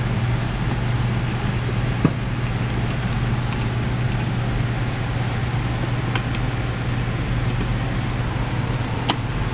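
Steady low hum and hiss of background room noise, with a few faint, sharp clicks from a piston and its wrist pin being handled as the pin is lined up with the rod.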